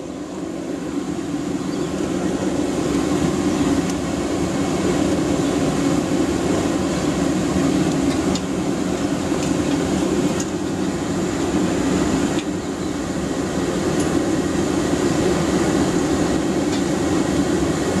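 Wood fire in a small brick furnace burning hard under forced air from a jumping castle blower: a steady rushing noise that grows louder over the first few seconds. A few faint clicks are heard, one about ten seconds in as the fire is poked.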